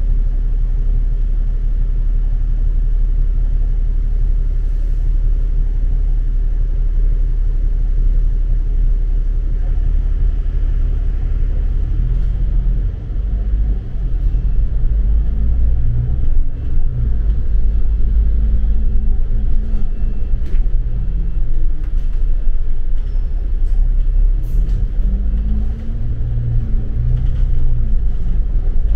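Road traffic: a steady low rumble, with the engines of passing vehicles rising and falling in pitch from about halfway in.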